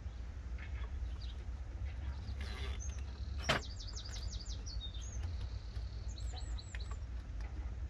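A small bird chirping in two runs of quick, high notes over a steady low background rumble, with one sharp click partway through.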